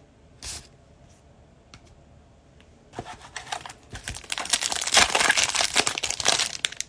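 Foil pack of 2022 Panini Chronicles Draft Picks trading cards being torn open by hand and its wrapper crinkled, starting about three seconds in and loudest near the end.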